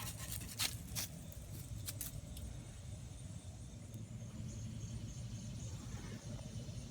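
A few irregular metal clinks from hand tools working the mini bike's seized clutch bolt in the first two seconds, then a steady low rumble.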